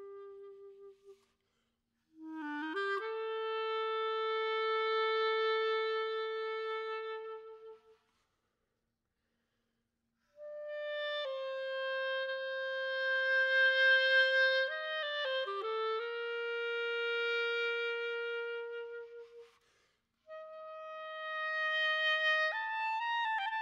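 Solo wooden clarinet playing a slow, lyrical melody of long held notes, each phrase entered with quick grace notes sliding into the note. The phrases are separated by pauses of a second or two, and the last phrase leaps up to a higher note near the end.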